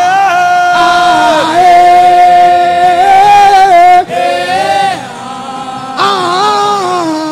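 Worship chant sung in long held notes with a slight waver, the notes swelling and falling; loudest about halfway through.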